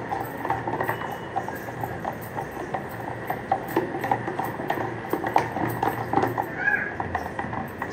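A stick twirled between the palms inside a steel jar, knocking and clicking unevenly against the metal, several times a second.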